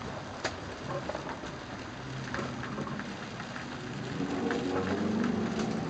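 Rain falling on a sailboat's cabin window and deck, a steady wash with scattered drop hits. A low, wavering moan sets in near the end.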